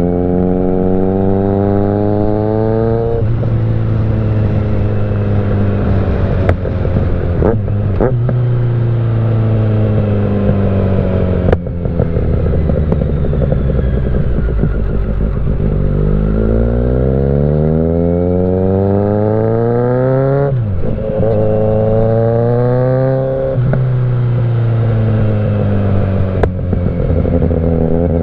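Kawasaki Z900's inline-four running through a Mivv GP Pro exhaust under way: the engine pitch climbs under acceleration and drops sharply at each upshift, about three times. A few sharp exhaust pops crack out over the engine noise.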